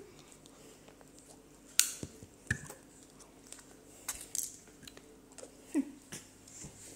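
A few scattered sharp clicks and soft handling sounds as a small plastic drink bottle is handled and sipped from close to the microphone; the sharpest click comes about two seconds in.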